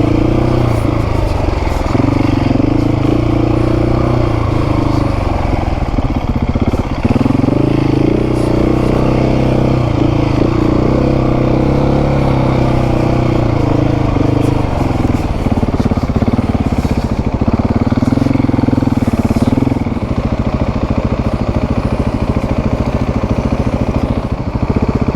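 Adventure motorcycle engine running under load while riding on beach sand, its revs rising and falling several times with throttle and gear changes.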